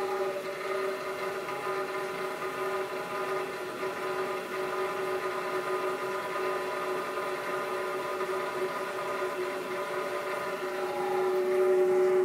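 Navien CH-210-NG condensing natural-gas boiler howling while under fire: a steady, pitched howl from the heat exchanger that grows louder near the end. It is abnormal operation in a unit about four months old.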